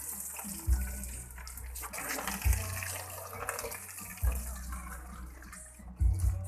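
Water running and splashing, with a steady hiss and low thuds about every two seconds.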